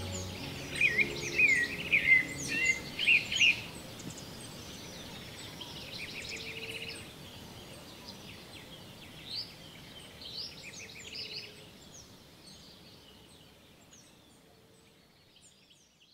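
Many small birds chirping, with the loudest, densest calls in the first few seconds and the chorus fading out toward the end. The last low notes of background music stop about half a second in.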